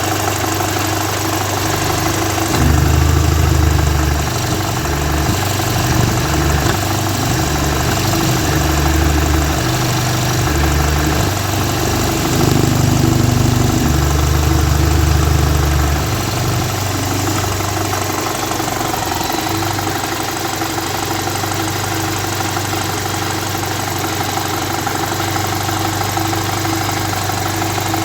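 Audi A3 2.0 FSI four-cylinder petrol engine idling. Its low rumble swells and fades unevenly for the first half or so, then holds steady.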